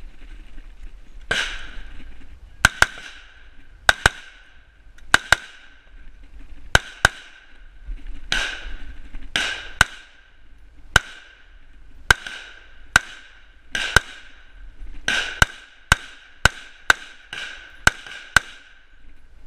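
AR-15-style semi-automatic rifle fired in a rapid string of about two dozen shots, many in quick pairs (double taps), each crack followed by a short echo.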